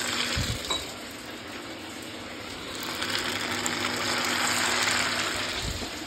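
Pieces of potato-semolina dough deep-frying in hot oil in a kadhai, a steady sizzle that grows louder about halfway through as another piece is dropped in. Two brief low thumps, one near the start and one near the end.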